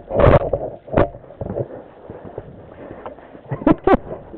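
Knocks, scuffs and microphone rumble from a dirt bike being manhandled over a rock ledge, with no engine running. A loud scuffing burst right at the start is followed by a sharp knock about a second in, then smaller knocks.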